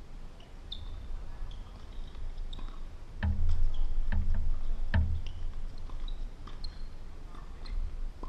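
Tennis ball struck or bounced three times in quick succession, each a sharp thud a little under a second apart.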